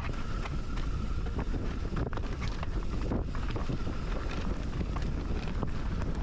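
Wind buffeting the microphone during a fast downhill ride, a steady low rush, with frequent small knocks and rattles from riding over rough ground.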